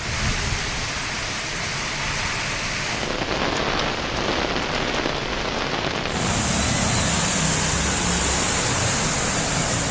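Heavy rain pouring down: a loud, steady hiss of rain with no lulls. Its tone changes abruptly about three and six seconds in.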